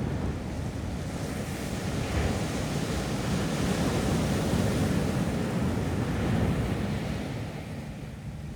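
Ocean surf on a beach: a wave builds over a couple of seconds, breaks and washes up, then eases off near the end, over a low wind rumble on the microphone.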